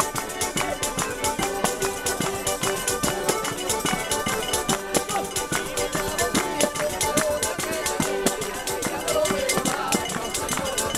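Southern Italian folk music played live: a zampogna bagpipe and an organetto (diatonic button accordion) sounding steady held notes and a tune, over a tambourine keeping a quick, even beat with its jingles.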